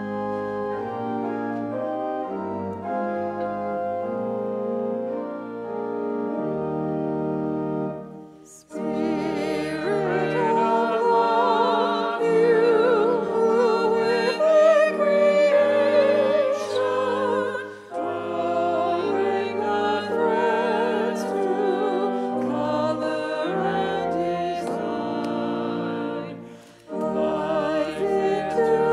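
Hymn accompanied on organ: held organ chords play an introduction, then about nine seconds in a voice with a strong vibrato begins singing the melody over the organ, pausing briefly between phrases.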